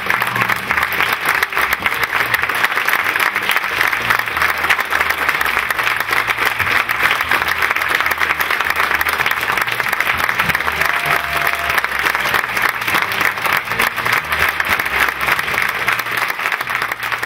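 Theatre audience clapping in a long, steady round of applause for the cast's curtain call.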